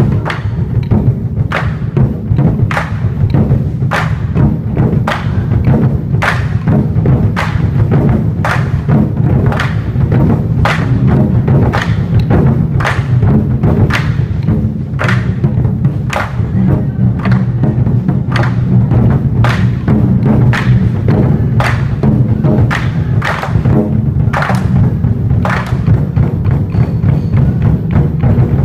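24 Festive Drums ensemble: four players beating large Chinese barrel drums with sticks in a steady, dense rhythm, with sharp accented strokes about one and a half times a second over a continuous rumble of drumming.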